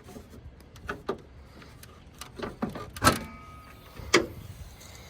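A few sharp clunks and knocks, the loudest about three seconds in with a brief metallic ring after it, and another strong knock about a second later.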